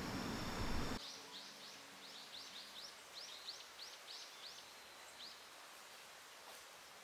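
A second of steady noise cuts off abruptly, then a small bird gives a quick run of short high chirps for about four seconds against quiet outdoor background.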